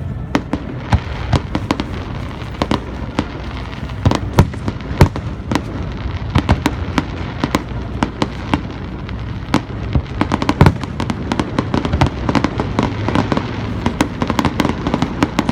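Aerial display fireworks bursting in a rapid, irregular barrage of sharp bangs and crackles over a continuous low rumble.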